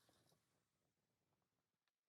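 Near silence: room tone, with a brief faint hiss near the start.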